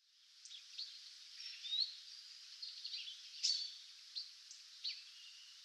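Faint bird calls: scattered short chirps and quick downward-sliding notes over a soft steady hiss, the two loudest about two and three and a half seconds in.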